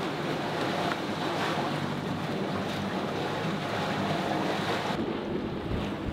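Wind buffeting the microphone and waves washing against a sailing catamaran under way in rough, upwind seas, with a steady engine drone underneath. The high hiss drops off sharply about five seconds in.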